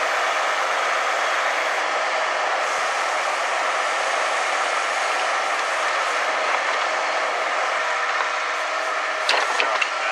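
A self-loading log truck's engine and hydraulic log loader running steadily with a mechanical whine. There are a few sharp knocks near the end.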